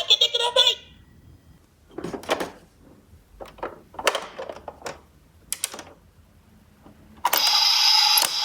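Toy mini cars clattering and rattling in short bursts as they roll down a slope. Near the end, a loud, steady electronic tone starts up.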